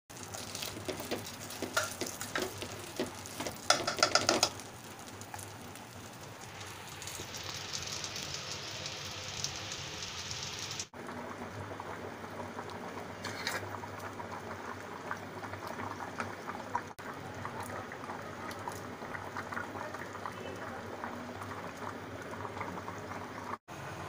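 Sweetened water with whole spices boiling hard in an aluminium pot, a steady bubbling. The first few seconds hold louder knocks and clatters.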